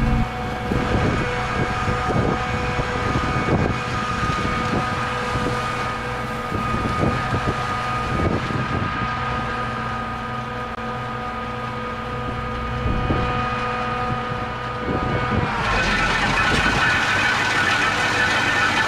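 New Holland TR89 combine harvester running while harvesting oats: a steady mechanical hum with held whining tones and occasional knocks. About three-quarters of the way through, the sound shifts as a higher whine grows stronger.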